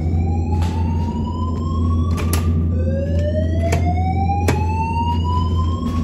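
Fire alarm evacuation whoop tone from a Notifier NFS2-640 system's audio message generator, playing over the building's speakers: slow rising sweeps, each climbing for about three and a half seconds, with a new sweep starting about halfway through. A few sharp knocks of footsteps on metal stair treads, over a steady low hum.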